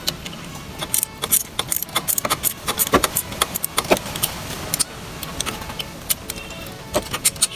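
Irregular metallic clicking and clinking of hand tools and bolts while the stock exhaust is being unbolted from a motorcycle. There is a busy run of sharp clicks through the first half and a few more near the end.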